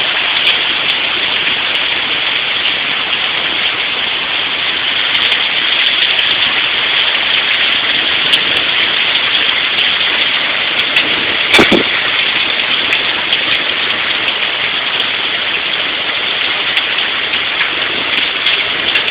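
Rain pouring steadily. A single sharp knock cuts through about twelve seconds in, the loudest moment.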